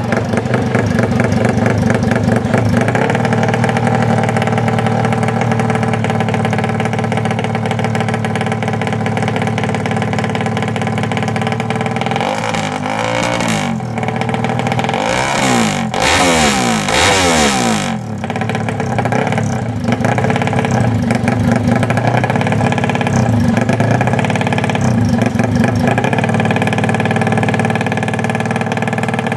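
Yamaha MX King motorcycle engine running continuously with a loud, choppy exhaust note likened to a helicopter. Its revs rise and fall repeatedly around the middle, loudest for a few seconds there, then it settles back to a steady run.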